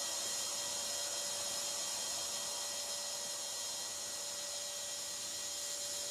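Steady hiss with a few faint unchanging hum tones, the recording's own background noise, with no distinct sound event.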